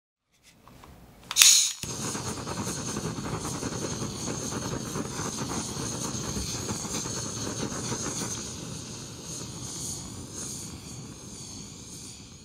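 Handheld butane torch lit with a sharp pop, then burning with a steady hiss of gas and flame that weakens over the last few seconds.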